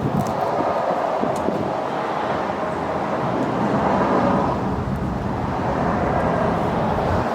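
Steady vehicle noise, an engine running with road or traffic rumble, swelling a little about four seconds in.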